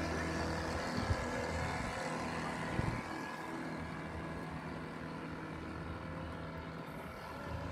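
Low, steady hum of a boat engine that weakens about three seconds in, over a steady rushing background noise.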